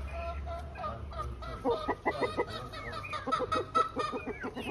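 A flock of chickens clucking. A quick run of short, rapid clucks starts about one and a half seconds in and carries on through the rest.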